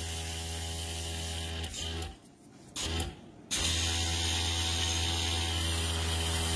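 Small airbrush compressor motor running with a steady hum and hiss. It cuts out about two seconds in, gives one short burst, and starts running again about a second and a half later.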